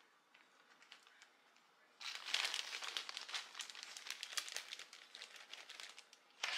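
Plastic zipper freezer bag crinkling and rustling as it is handled and slices of bread are put into it, a dense crackle full of small clicks that starts about two seconds in and stops shortly before the end.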